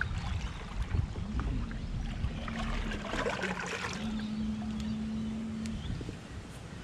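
Brushless electric motor of a home-built kayak drive humming at a steady pitch over water and wind noise. The hum dips briefly a couple of times and cuts out near the end.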